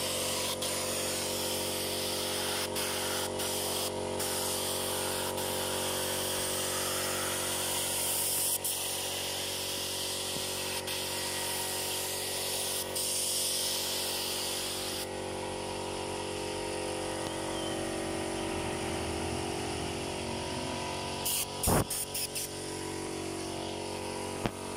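Steady mechanical hum made of several steady tones, with a hiss over it that drops away about fifteen seconds in. A few sharp clicks come near the end.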